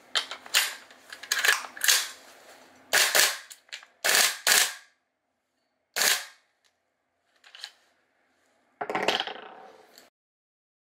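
WE-Tech gas blowback XM177 airsoft rifle firing about ten single shots at uneven intervals, each a sharp pop. A longer, fading burst comes near the end.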